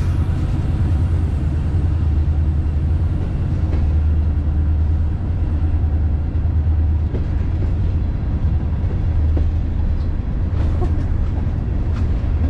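Freight train cars rolling past: a steady low rumble of steel wheels on the rails, with a few faint clicks in the second half.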